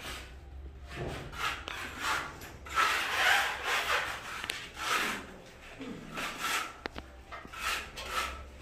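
Irregular scraping and rubbing of wooden boards being handled, in short uneven strokes with a few sharp knocks.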